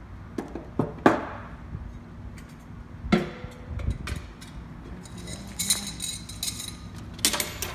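Metal clinks and knocks of a shrunken cylinder liner and its lifting wire against the neck and plug of a liquid-nitrogen dewar as the liner is drawn out, the sharpest knock about a second in. A stretch of hiss and crackle follows near the end.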